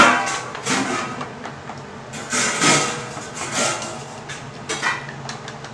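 Wooden chopsticks beating eggs in a ceramic bowl: uneven swishing strokes with taps against the bowl.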